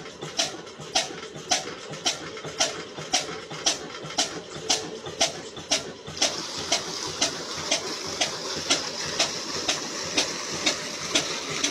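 Slow flywheel engine running steadily with evenly spaced exhaust beats, about two a second, as it drives a belt-driven water pump. About six seconds in, a rushing splash of water joins and grows as the pump delivers and its outlet pipe pours into a concrete tank.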